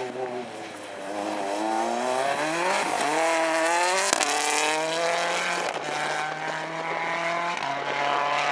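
Mini WRC rally car's turbocharged 1.6-litre four-cylinder accelerating hard past and away, its engine note climbing and stepping at each gear change. A single sharp crack about four seconds in.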